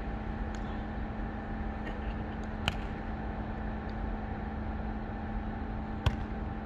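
Steady outdoor hum with a low constant tone, and a few sharp slaps of a volleyball being hit or caught, the loudest about two and a half seconds in and about six seconds in.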